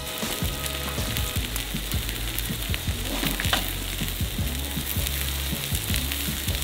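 Food sizzling in a hot frying pan as it is stirred, with many small crackles over a steady hiss.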